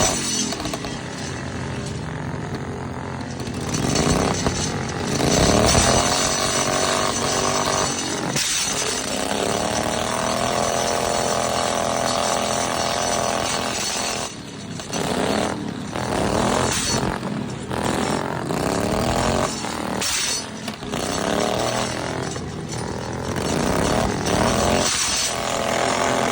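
Small lawnmower engines revving up and down over and over, the pitch rising and falling every few seconds.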